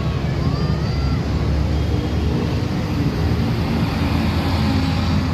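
Intercity bus and road traffic passing close by: a steady, loud low rumble of diesel engine and tyres.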